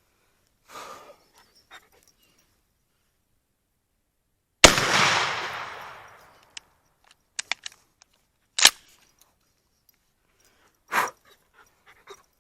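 A single 12-gauge shot from a GForce P3 14-inch pump-action firearm, a sharp blast about four and a half seconds in with a long fading echo. Several short sharp clacks follow, the loudest about four seconds after the shot.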